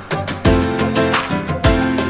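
Background music with a steady beat: sustained pitched notes over regular drum strikes.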